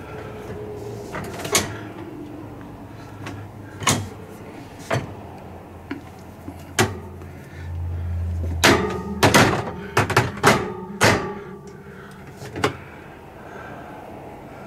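Louvered wooden cabinet doors being opened and shut, giving sharp clicks and knocks from their catches and hinges. Single clicks come every second or two, then a quick run of several knocks in the middle.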